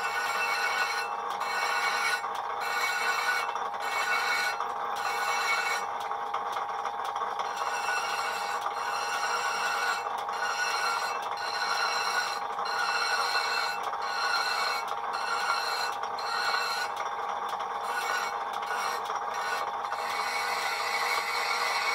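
Hand file rasping against the edge of a cast-iron brake disc spinning on a South Bend lathe, breaking the edge in repeated strokes. The lathe hums steadily underneath.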